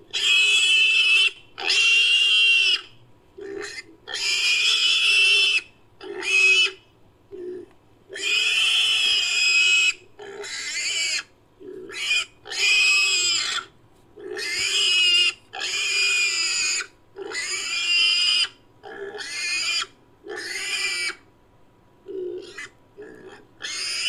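Pig squeals reworked into a made-up creature call for an extinct Orthoceras. The sound is a long series of shrill squeals, some brief and some over a second long, with short gaps between them and pitch that slides up and down.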